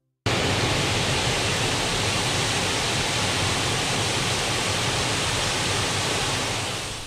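Rushing water: a steady, even hiss with a low rumble under it, starting suddenly and cutting off suddenly near the end.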